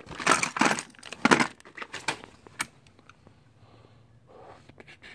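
Metal hand tools clattering and clinking as they are rummaged through and picked up: a run of sharp clacks over the first two and a half seconds, then quieter handling.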